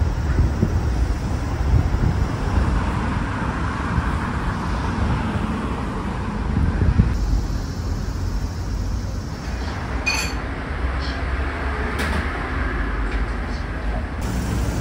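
Road traffic noise from a busy street: a steady low rumble of passing vehicles, with a brief high chirp about ten seconds in.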